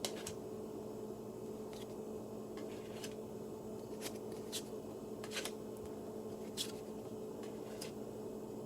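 Trading cards handled one at a time: short, soft slides and taps every second or so as each card is moved off the stack. A steady low hum runs underneath.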